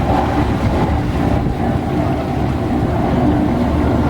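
Boat engines running steadily at low speed, a low, even rumble with a faint hum.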